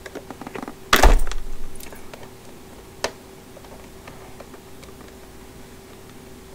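Plastic packaging being worked open by hand: a few small clicks, then a loud knock with a short crackle about a second in, and one sharp click about three seconds in.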